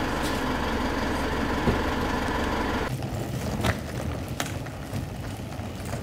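A car engine idling steadily. About three seconds in it gives way to a quieter noise with a few sharp clicks.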